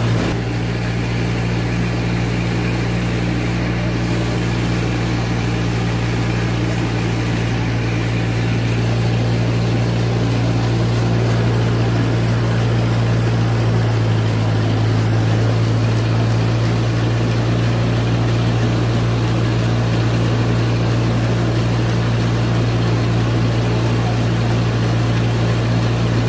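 Rice mill machinery running while milling palay: a loud, steady, low mechanical drone.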